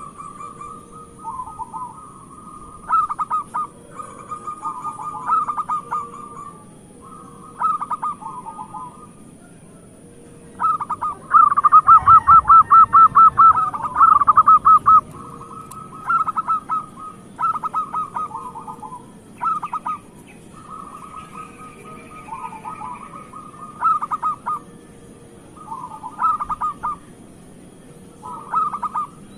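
Zebra dove (perkutut) cooing: phrases of rapid staccato coos, repeated every second or two, with the loudest and fastest run of coos near the middle.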